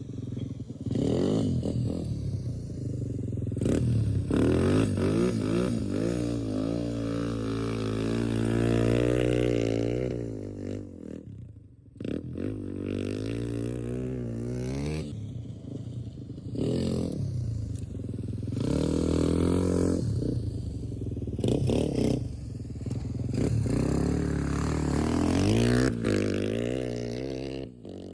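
Off-road vehicle engine riding in sand, revving up and easing off again and again, with rattling from the vehicle. The sound cuts off briefly about twelve seconds in and picks up again.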